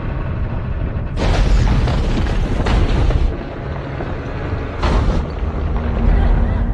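Action-film soundtrack: explosions going off, a loud blast about a second in and another near five seconds, with a heavy rumble between them over the film's score.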